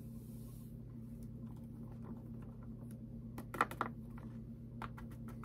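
Plastic pouch of dry malt extract crinkling faintly as it is shaken and tapped empty over the fermentation tank, with a couple of louder crinkles a little past halfway and a quick run of small ticks near the end. A steady low hum sits underneath.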